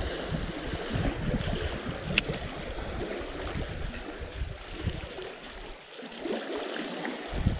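Turbulent spillway water churning and rushing below, a steady wash of noise. One sharp click about two seconds in.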